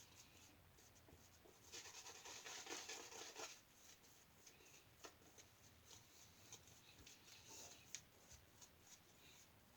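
Faint crackling scrape of a double-edge safety razor cutting through lathered stubble, one longer run of strokes about two seconds in, then a few short isolated scrapes and taps.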